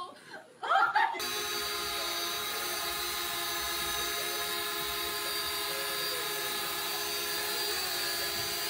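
Small toy quadcopter drone hovering, its propellers giving a steady buzzing whine made of several held tones that starts abruptly about a second in.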